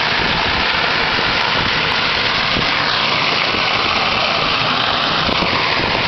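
A waterfall heard from close up: a steady, loud rush of falling water. It turns a little duller about halfway through.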